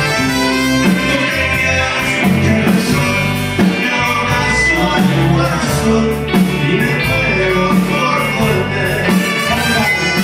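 Live Tex-Mex band playing a ranchera with button accordion, electric guitars, bass and drum kit, a man singing lead over it.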